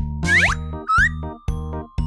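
Upbeat children's background music with a steady bass beat, overlaid by two quick rising cartoon swoop effects in the first second.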